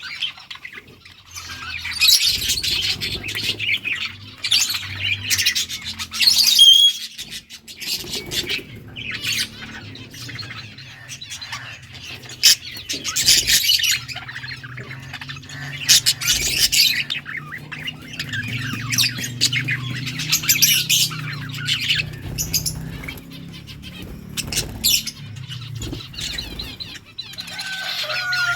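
Budgerigars chirping and chattering in repeated bursts of squawky calls, separated by short lulls. A faint steady low hum lies beneath.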